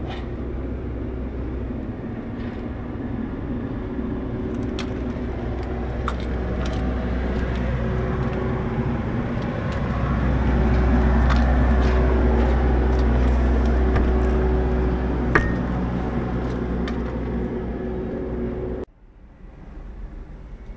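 A machine running steadily, with a pitched drone and a few scattered clicks. It grows louder about ten seconds in, then cuts off suddenly near the end.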